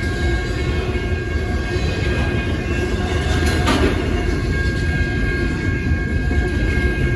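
BNSF intermodal freight train's cars rolling past, a steady heavy rumble with a thin, steady high tone over it. One sharp clank comes a little past halfway.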